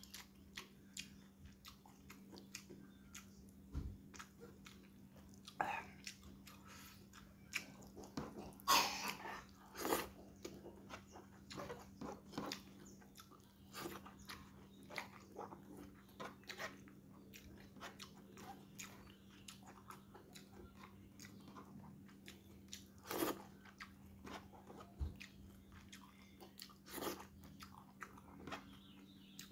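Close-up mouth sounds of a man eating rice and balado egg with his fingers: chewing and smacking in many short clicks, with a few louder ones about nine seconds in and again about twenty-three seconds in. A faint steady hum runs underneath.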